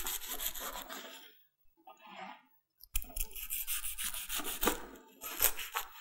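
A kitchen knife sawing through a toasted sandwich on a plastic cutting board: rasping strokes through the crisp toast, in three bouts, with a pause of about two seconds after the first and the longest bout from about three to five seconds in.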